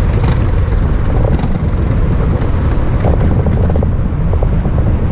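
Racing kart engine running as the kart rolls along, heard through a camera mounted on the kart, with a steady low rumble.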